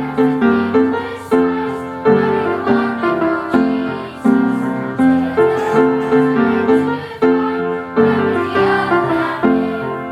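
Piano music: a flowing run of struck notes and chords, each note fading away after it is played.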